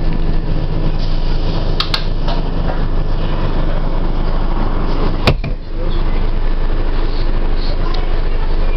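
Bus engine and road noise heard from inside the passenger cabin: a steady low drone, with a couple of light clicks about two seconds in and one sharp knock a little past five seconds.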